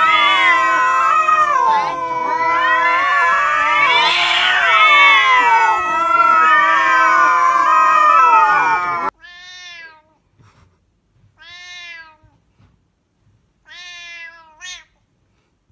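Two cats yowling at each other in long, overlapping, wavering calls that stop abruptly about nine seconds in. Then a single cat gives three short, quieter meows a couple of seconds apart.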